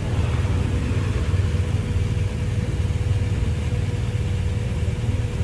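Steady low rumble of a motor vehicle, with a faint steady whine underneath.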